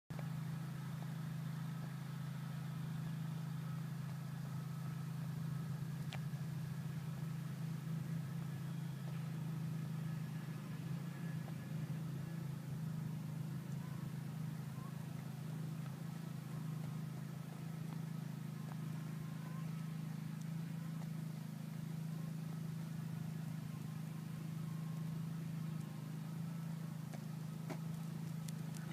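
A steady, unchanging low mechanical hum, like a motor running at constant speed.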